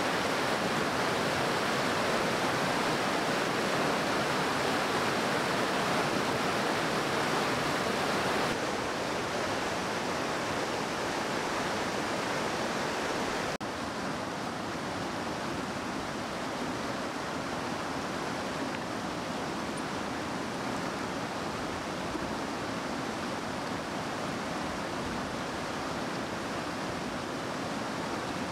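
Mountain river rushing over boulders and through white-water rapids: a steady, even rush of water that drops a little in level about nine seconds in and again about fourteen seconds in.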